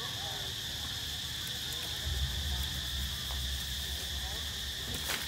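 Steady high-pitched drone of a forest insect chorus. A low rumble comes in about two seconds in, and there is a single short knock near the end.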